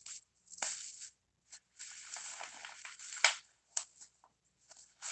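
Clear plastic packaging rustling and crinkling in irregular bursts as hands dig through it in a cardboard box, with a sharp click a little over three seconds in.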